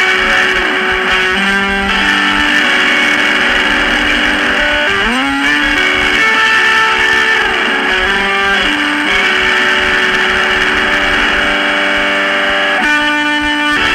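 Lo-fi electric guitar music: held notes ringing over a hissy haze, with a few swooping pitch bends.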